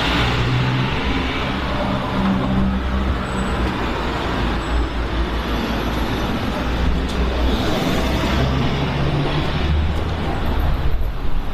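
Road traffic: a steady low rumble of vehicle engines, with engine notes that swell and fade as vehicles pass.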